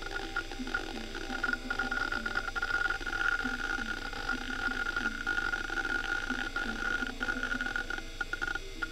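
Western Digital Caviar 21200 hard drive working during a game load: a steady high whine with irregular clicking and chattering of the head actuator as it seeks. The drive is riddled with scattered bad sectors.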